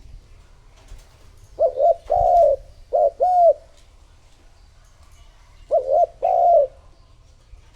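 Spotted dove cooing in three phrases, each of two or three short notes followed by a longer drawn-out coo. This is a decoy cock's call of the kind used to lure wild doves.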